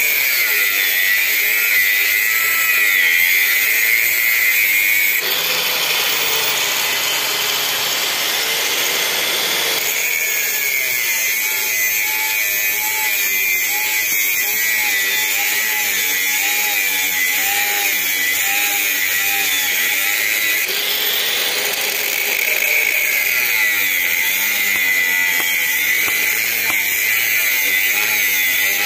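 Angle grinder with a cutting disc running continuously as it cuts into the finned metal casing of a scrap electric motor: a steady, high grinding whine whose pitch wavers up and down.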